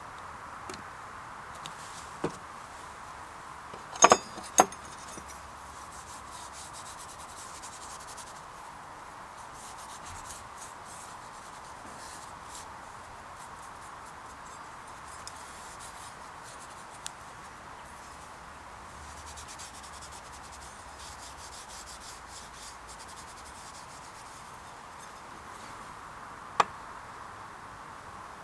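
A paper towel rubbing oil onto the steel blade of a hand-forged herb chopper, over a steady background hiss. A few sharp knocks on the wooden table stand out, the loudest pair about four seconds in and another near the end.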